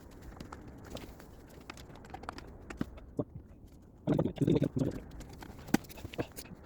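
Scattered light clicks and taps of hand tools and engine parts being handled during reassembly, with a louder muffled patch about four seconds in.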